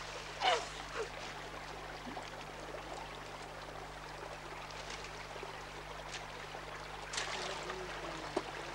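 Shallow rainforest stream running steadily, a continuous water sound. A short voice is heard just after the start, and a brief burst of noise comes about seven seconds in.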